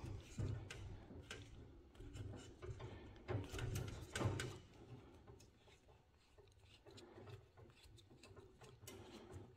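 Faint rubbing and light clicks of a 3D-printed plastic coil form being unscrewed from a freshly wound coil of 3/16 copper-nickel brake line, the handling sounds mostly in the first half.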